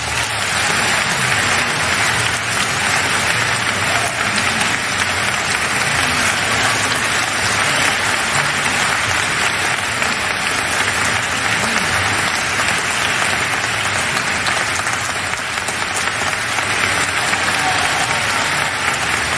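Audience applauding steadily, the dense patter of many hands clapping at once.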